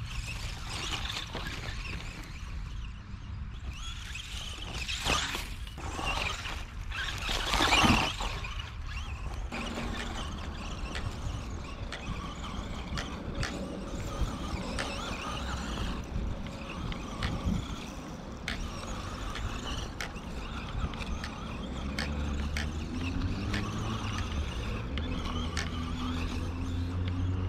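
Small electric RC monster truck driving over dirt and pine needles: its motor whining and its tyres crunching and scrabbling, loudest in a rush around five to eight seconds in. Music with a bass line comes in over the last few seconds.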